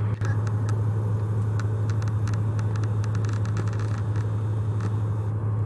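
Deep, steady drone of a passing Rhine cargo barge's diesel engine, over a rushing haze of noise.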